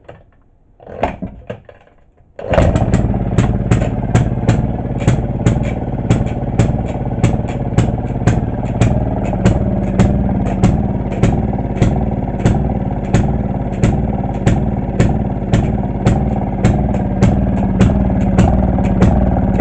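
Maytag two-stroke half-horsepower washing-machine engine starting about two and a half seconds in, then running steadily with loud, sharp, evenly spaced exhaust pops, about three a second.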